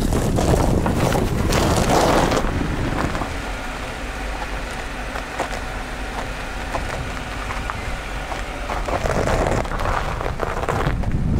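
Wind rushing over a car-mounted microphone while a car drives across lake ice, with tyre noise as the front wheel ploughs through crusted snow. It is loudest for the first two seconds or so, drops to a steadier hiss as the car runs on smooth ice, and rises again near the end.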